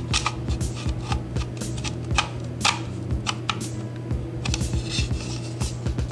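Irregular light clicks and taps of plastic model-kit parts being handled and turned over in the hands, over a steady low hum.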